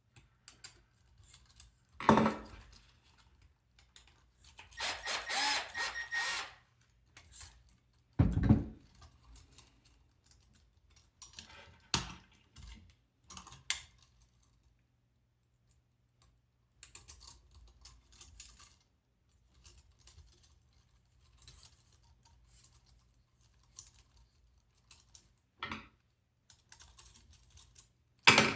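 Hands working small robot-kit parts and screws: scattered clicks, taps and knocks, with a louder thud about two seconds in, a rattle lasting about two seconds around five seconds in, another thud at about eight seconds, and a knock near the end.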